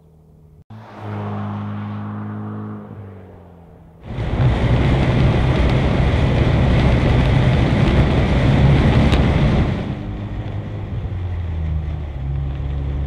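Ford Bronco cruising at about 50 mph, heard from inside the cabin. Partway through, the stock exhaust, a loud rush of wind and road noise over the engine, gives way to a Flowmaster FlowFX cat-back exhaust with less rush and a steady, deep exhaust drone. It opens with a few seconds of steadier engine hum.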